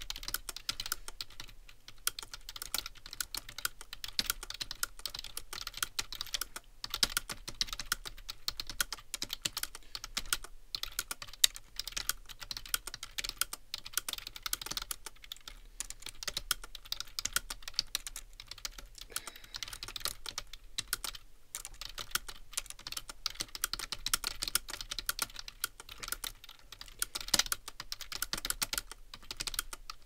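Fast, continuous typing on a computer keyboard at about 90 words per minute: a rapid, unbroken run of key clicks with only brief breaks.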